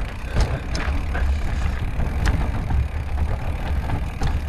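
Mountain bike rolling over sandstone slickrock: a steady low rumble of wind on the microphone, with scattered sharp clicks and rattles from the bike.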